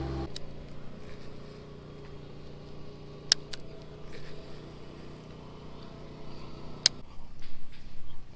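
A motor running steadily in the background: a low hum with a few level tones that drops away about seven seconds in. Two sharp clicks sound, about three and seven seconds in.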